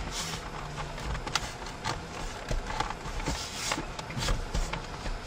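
Plastic trim cover of a Chevy Silverado center console being pressed and snapped into its clips: scattered clicks and plastic rubbing.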